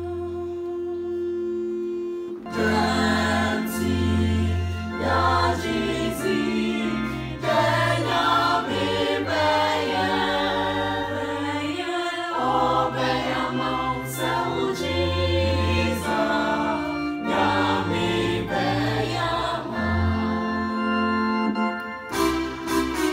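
Small church choir singing a Ghanaian Fante hymn, accompanied by an electronic keyboard playing sustained chords and a bass line. A softer held chord opens, and the full singing comes in about two and a half seconds in.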